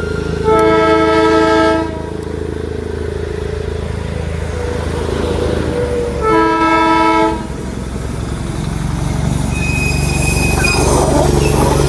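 Toy train's horn sounding two blasts, each a second or so long and made of several tones at once, about five seconds apart, over a steady low running rumble.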